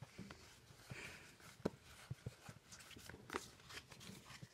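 Faint crinkling and rustling of a Pokémon trading-card booster pack's foil wrapper as it is handled and opened, with scattered small clicks.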